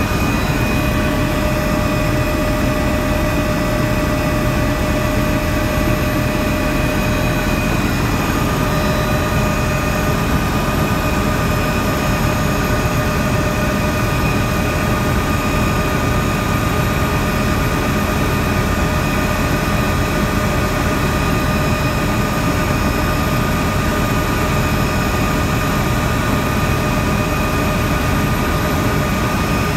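Helicopter in steady flight, heard from inside the cabin: a constant loud engine and rotor drone with several steady high tones running through it.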